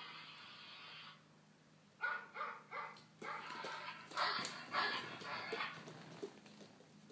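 Recorded dog barks played through a cell phone speaker: a run of short barks in quick groups, starting about two seconds in after a brief lull.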